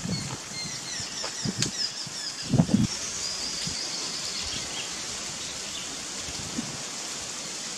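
Outdoor ambience: a steady high hiss, with quick high chirping calls over the first few seconds and a few low rustling thumps, loudest about two and a half seconds in.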